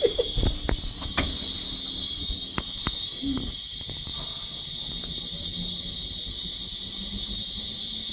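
Fat sizzling in a hot plough-disc pan (disco) over a fire: a steady high hiss, with a few sharp crackles and pops in the first three seconds.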